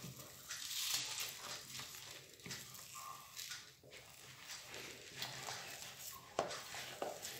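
Soft, quiet scraping and squishing of sticky date paste being scraped off a plate into a plastic bowl with a spoon and pressed by hand, with a couple of light taps near the end.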